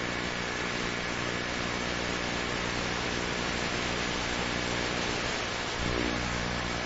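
Steady helicopter noise: an even hiss over a low droning hum, with a faint high steady whine. There is a short low bump about six seconds in.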